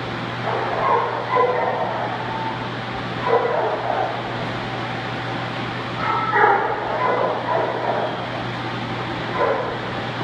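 A dog barking and yipping in short bursts: a few calls about a second in, one near the middle, a longer run of yips and barks a little past the middle, and one more near the end, over a steady low hum.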